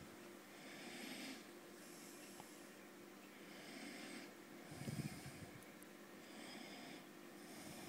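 Faint breathing close to the microphone, soft hissy breaths coming about every second or two, with a brief low rumble about five seconds in and a faint low hum underneath.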